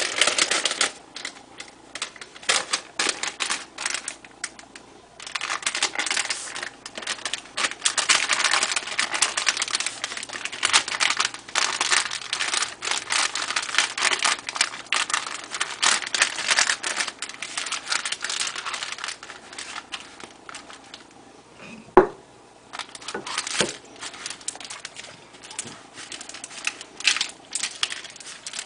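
Oven paper (parchment) crinkling and rustling as hands roll a sponge cake up inside it and press it into shape, with a dense crackle of fine clicks. About three quarters of the way through the rustling pauses and there is a single sharp knock, then the crinkling resumes.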